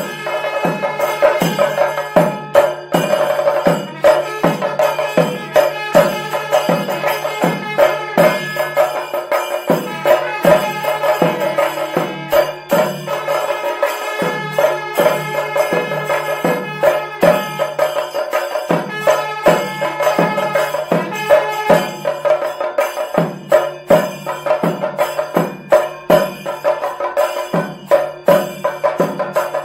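Kerala pandi melam: chenda drums struck with sticks in a steady beat of about two strokes a second, over held notes from kombu horns and kuzhal pipes. A low held note breaks off and starts again every four or five seconds.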